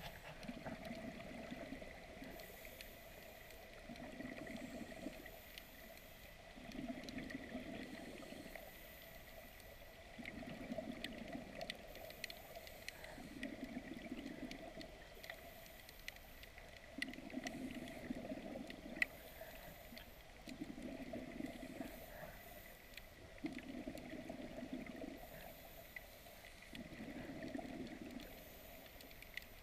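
Underwater sound of a scuba diver breathing: exhaled bubbles gurgling, alternating with a short hiss on each inhale, about one breath every three to four seconds. Faint scattered clicks run underneath.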